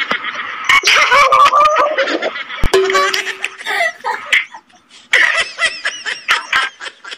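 A man and a woman laughing hard over a video call, in rapid repeated bursts, with a short lull about four and a half seconds in. There is a single sharp knock about two and a half seconds in.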